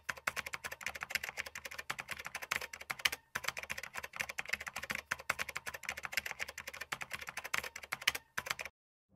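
Rapid keyboard typing clicks, many keystrokes a second, with a brief pause about three seconds in, stopping shortly before the end.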